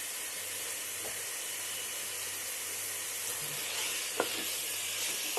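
Chicken pieces frying in a hot pan of onion, tomato and masala paste, a steady sizzle, with one sharp tap about four seconds in.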